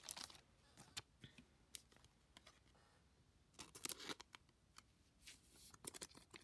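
Faint, scattered rustles and light clicks of a trading card being handled and slipped into a clear plastic card sleeve, with a small flurry of them about four seconds in.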